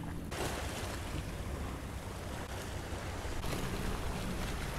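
Sea swell washing and breaking against a rocky shore, with wind noise on the microphone; the wash fills out a little after about three seconds.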